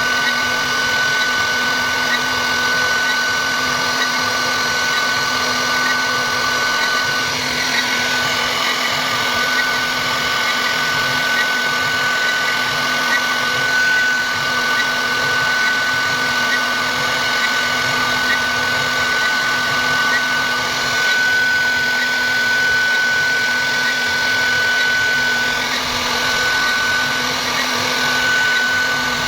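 CNC router spindle running with a steady high whine over the hiss of a bit cutting wood. The whine briefly drops out near the end.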